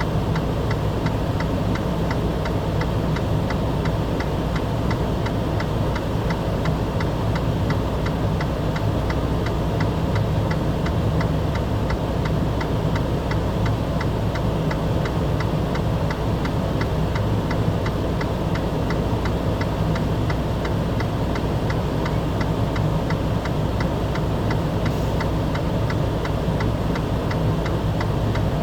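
A steady low engine hum, like an idling motor, with a fast, even ticking running over it.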